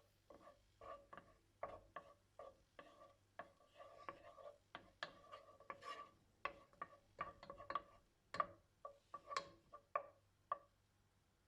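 A utensil stirring and tapping in a pan of butter, with many quick, irregular knocks and scrapes that make the pan ring briefly; the loudest knock comes about eight seconds in.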